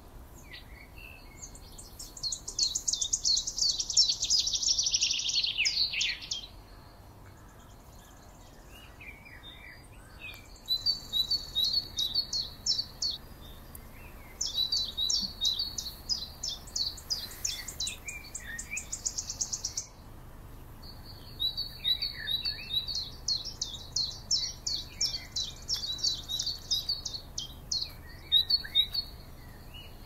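Songbirds singing in long phrases of rapid, high repeated notes, four phrases in all. The first and loudest slides down in pitch as it goes.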